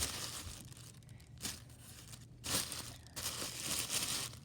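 Packaging crinkling and rustling in irregular bursts as it is handled and pulled apart.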